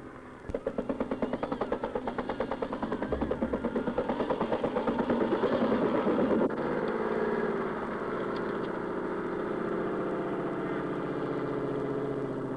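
UH-1 Huey helicopter with a rapid, even rotor beat that grows louder. About six and a half seconds in it gives way to the steady running engine of a tracked armoured personnel carrier.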